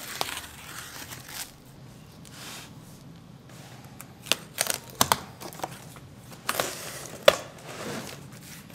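Clear plastic stretch wrap crinkling and tearing as it is ripped off a wrapped bumper part by hand, with a run of sharp crackles and snaps about halfway through.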